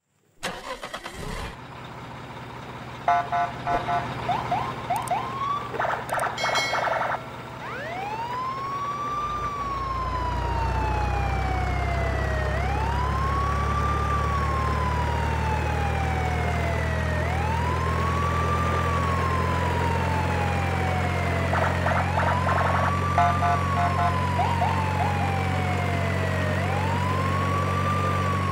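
A wailing siren, each cycle rising quickly and falling slowly, repeating about every four and a half seconds over a steady low engine-like drone. A few seconds in, and again later, there are clusters of short rapid electronic chirps.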